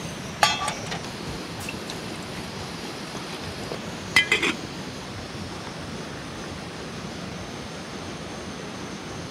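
Small enamel cooking pot clinking as it is set down on a camping gas stove, then a second clink with a brief metallic ring about four seconds in as its lid goes on, over a steady hiss.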